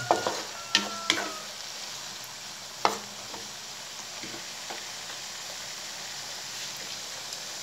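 Diced garlic, onion and tomato sizzling in oil in a wok as they cook down toward caramelizing, while a wooden spatula stirs and scrapes the pan. A few sharp taps of the spatula on the metal come through, the loudest about three seconds in.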